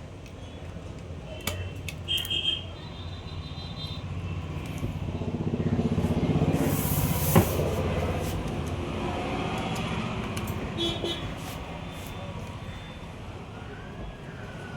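Road traffic: a vehicle passes by, loudest about halfway through, with short horn toots near the start and again near the end. There is a sharp click about halfway through.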